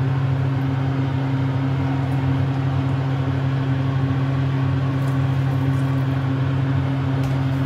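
Steady low motor hum with an even hiss, unchanging throughout, from a kitchen appliance running beside the stove.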